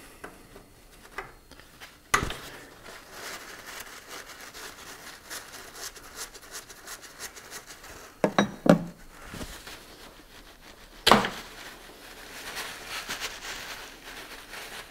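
A spanner clinks and knocks against a power-steering hose fitting as it is undone, with a paper towel crinkling around the fitting. There is a sharp knock about two seconds in, a pair around eight seconds and another around eleven seconds.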